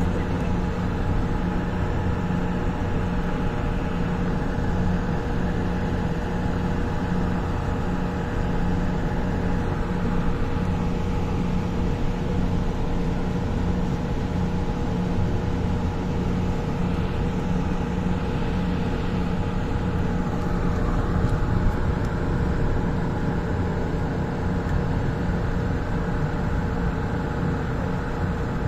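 Light rail train running: a steady hum with a constant low drone under an even rush of noise, holding the same pitch throughout.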